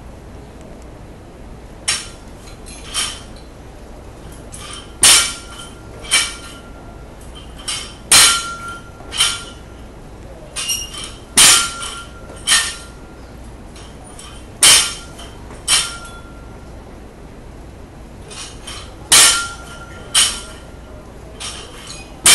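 Loaded barbell with bumper plates and small steel change plates clanking on a rubber lifting platform during repeated snatches. Sharp clanks come in pairs about a second apart, every three to four seconds, several with a short metallic ring. Two lighter knocks come first.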